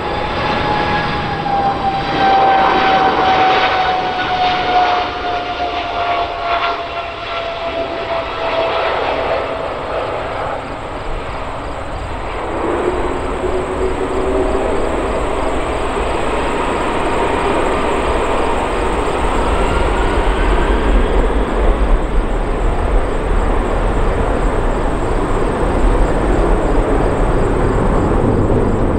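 Airbus CC-150 Polaris (A310) jet engines: first a whine that falls in pitch as the jet flies past, then, about halfway through, a rising whine and a deep rumble that grows louder as the engines power up to takeoff thrust and the jet climbs away.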